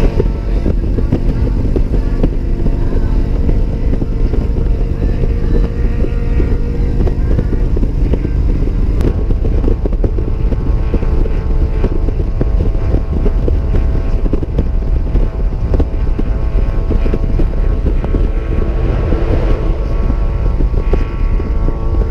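Harley-Davidson Ultra Limited touring motorcycle running steadily while being ridden, its engine note holding an even pitch.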